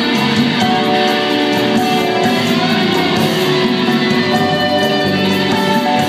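Live rehearsal of a band with a string orchestra playing a pop song: violins and cellos holding steady notes over drums and a strummed guitar, at full volume and without a break.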